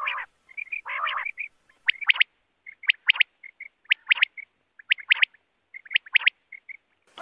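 Common quail (Coturnix coturnix) song: the sharp three-note 'wet-my-lips' phrase, repeated five times about a second apart. Two short, lower, rougher calls come just before, and faint soft chirps fall between the phrases.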